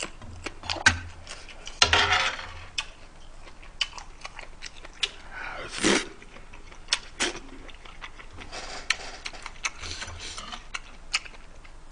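Eating noises: a metal spoon clicking and scraping against a griddle pan and dishes, about a dozen scattered clinks, with a couple of short breathy mouth sounds of chewing and eating around two and six seconds in.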